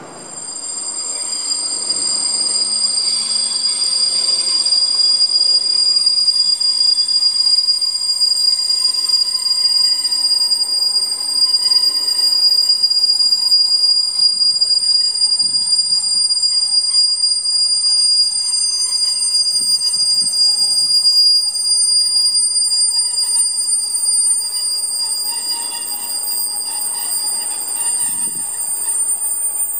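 Passenger train headed by two Sr1 electric locomotives running in multiple, passing slowly; its running noise swells over the first couple of seconds and carries a steady high-pitched squeal throughout, with a few dull thuds from the wheels.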